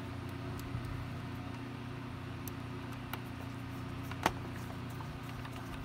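Hand screwdriver driving a screw into the plastic housing of a Shark NV500 vacuum: faint clicks, with one sharp click about four seconds in, over a steady low hum.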